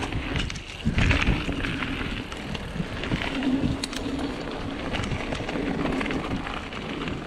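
Mountain bike rolling down a gravel trail: tyre noise on the loose gravel and the bike rattling over bumps, with wind on the microphone. A heavier thump about a second in.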